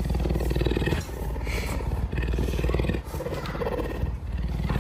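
An animal's loud, low, rapidly pulsing rumble like a purr, close to the microphone, coming in breath-long stretches with short breaks between them.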